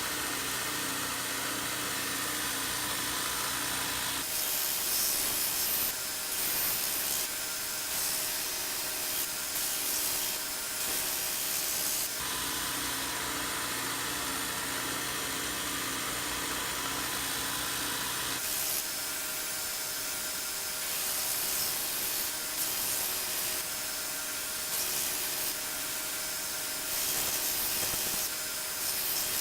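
1x42 belt sander running with the steel cleaver blade held against its belt: a steady motor hum under a hissing grind that grows stronger in two long passes, from about 4 s to 12 s and from about 18 s on, and eases between them, as scratches are sanded out of the blade's side.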